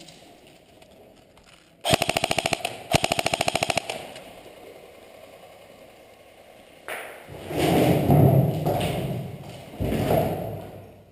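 Airsoft gun firing two rapid full-auto bursts, each about a second long, a fast rattle of shots. Later comes a longer stretch of rough scuffing and rustling noise, loudest near the end.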